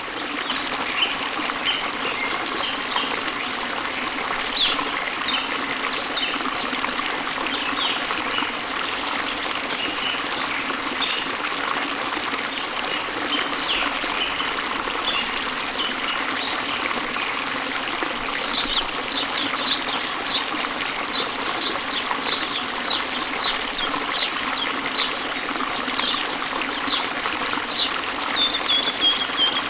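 Waterfall water splashing and trickling steadily, with small birds chirping over it, the chirps coming thicker and louder in the second half.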